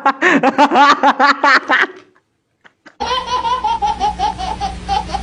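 Hearty laughter in rapid rhythmic pulses that stops about two seconds in. After a second of silence, a second, higher-pitched rapid laugh comes in over a steady low hum.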